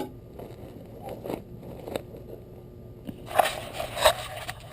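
Handling noises while working on an air-conditioning unit: scattered clicks, scrapes and crackles, with two louder scraping bursts near the end.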